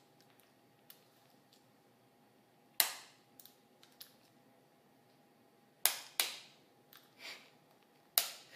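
A bump hammer striking a homemade bump key set in a Master Lock padlock: a handful of sharp, irregularly spaced taps, four of them loud, with lighter clicks in between, as the key is bumped to jump the pins.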